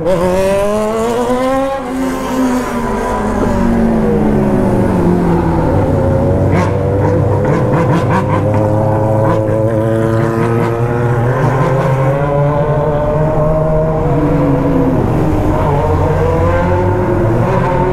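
BMW R1200 GS boxer-twin motorcycle engine with a straight-pipe exhaust, running under way. Its pitch dips and rises again over the first few seconds, then it holds a steady cruising speed.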